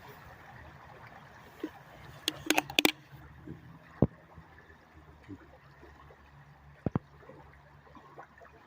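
Shallow river water running and gurgling over stones, with a handful of sharp knocks: a quick cluster about two and a half seconds in, one at about four seconds and a close pair near seven seconds.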